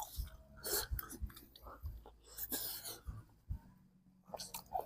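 A person chewing boiled chicken with the mouth full, with short wet smacks and soft breaths through the nose.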